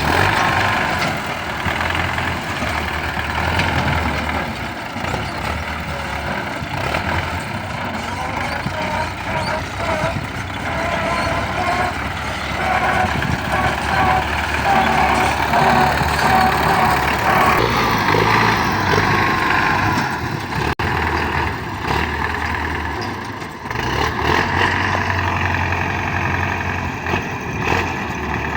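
Combine harvester running steadily, its engine and threshing machinery making a continuous mechanical din with a wavering whine.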